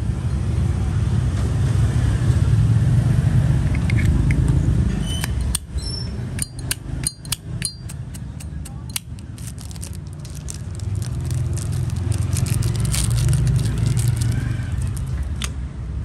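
A Zippo lighter being handled: a quick, irregular run of sharp metallic clicks and clinks starting about five seconds in and lasting some ten seconds, over a steady low rumble of road traffic.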